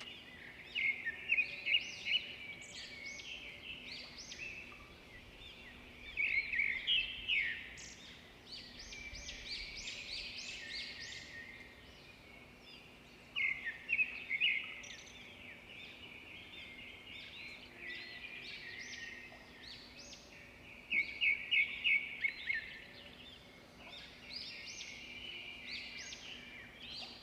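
Small birds chirping and twittering, many short high calls overlapping, with louder bursts of fast repeated notes every several seconds.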